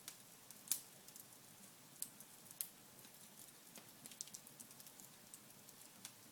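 Wood burning in a fireplace, crackling faintly with scattered sharp pops; the loudest pop comes just under a second in, with two more around two and two and a half seconds.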